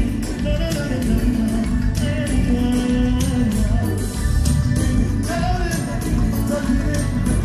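Live pop band music in a large arena, heard from among the audience: a steady beat with regular sharp percussion hits, band chords and a sung melody.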